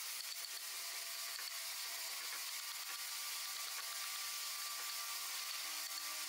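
Small hand wood-carving chisel shaving and scraping wood in many light, quick strokes, heard over a steady hiss.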